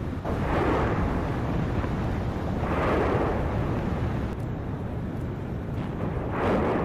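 Steady low outdoor rumble with three louder rushing swells, about half a second in, around three seconds and near the end.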